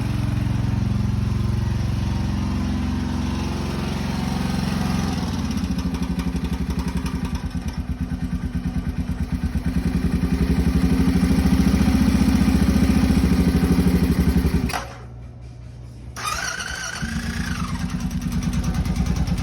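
Honda 650 motorcycle engine running with an unidentified mechanical engine noise that the owner calls not good. It picks up and gets louder partway through, drops away sharply for about a second near three-quarters of the way, then runs on again.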